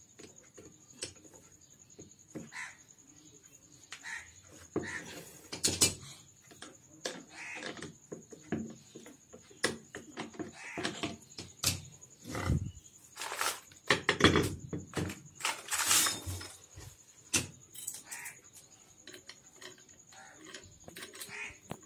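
Irregular metallic clicks and clinks of pliers and steel parts on a Maruti Zen steering rack being worked by hand, with a bunch of louder knocks about two-thirds of the way through. Short bird calls repeat in the background.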